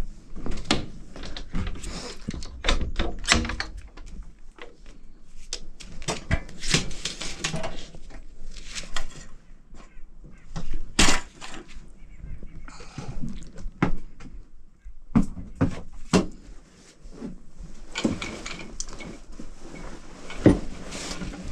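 Irregular knocks, thuds and clatter of gear being handled in the back of a box truck: the rear door, footsteps on the metal step and cargo floor, and buckets and tools being shifted about.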